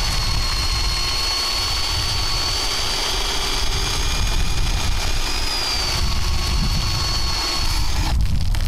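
A drill running at a steady high speed drives a 3D-printed lobe pump, giving a steady motor whine while the pump sprays a jet of water from its outlet hose. The whine stops about eight seconds in.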